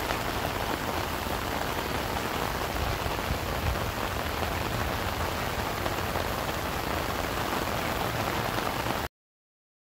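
Steady rain falling, an even hiss that cuts off suddenly about nine seconds in.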